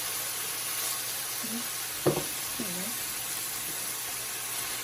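Chopped red onions and butter sizzling steadily in hot olive oil in a pan, just put in to sweat, with a single knock about two seconds in.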